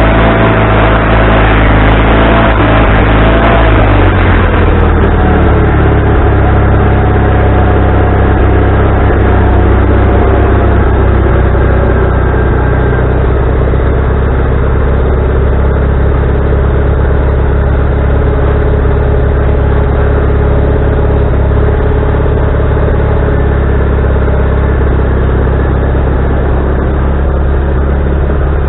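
Wood-Mizer LT40HD band sawmill running loud and steady, its engine note dropping a little about four seconds in and then holding.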